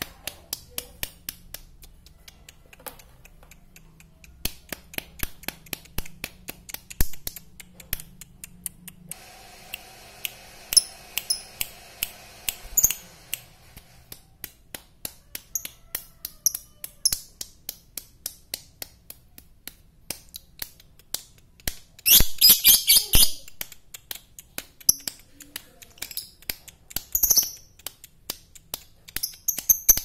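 Blue masked lovebird calling in short, sharp chirps, a few a second, with a brief loud burst of rapid chattering about 22 seconds in.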